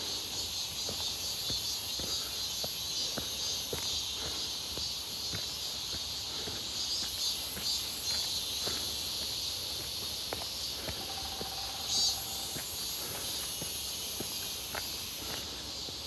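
Summer cicadas buzzing steadily in the trees. A louder, higher cicada buzz joins about three-quarters of the way through and cuts off just before the end. Steady footsteps crunch on a dirt trail strewn with dry leaves.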